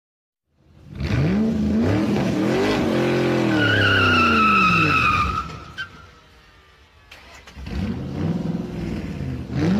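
Sports car engine revving up and down, with a high tyre squeal from about three and a half seconds in that lasts a couple of seconds. The sound fades away, then the engine revs up again near the end.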